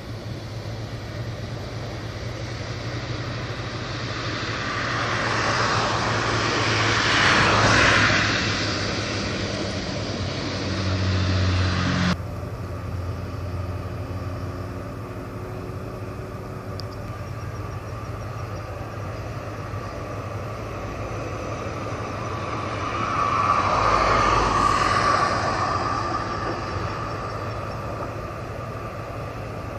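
Vehicles passing by over a steady low hum: two pass-bys, each swelling and fading over several seconds, the first peaking about a quarter of the way in and the second past the middle.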